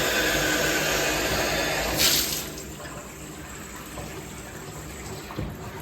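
Bathtub faucet running, water pouring and splashing into the tub. About two seconds in it briefly swells and then drops to a quieter flow.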